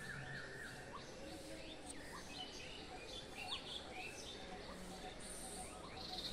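Outdoor birdsong: several birds chirping with many short rising notes, and a quick rapid trill near the end, over a faint low hum.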